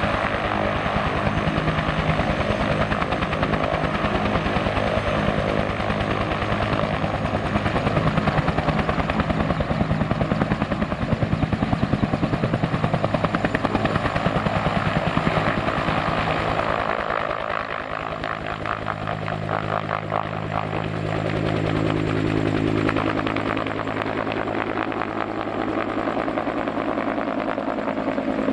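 Bell 214B-1 Biglifter helicopter, with a single turbine engine and a two-bladed main rotor, running at full power as it lifts off and climbs away. A rapid, steady beat of the rotor blades runs over the turbine's noise, and the sound shifts about two-thirds of the way through as the helicopter rises and moves off.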